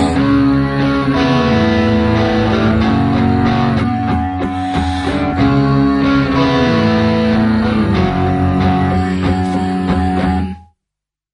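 Music with guitar, loud and steady, which cuts off abruptly near the end.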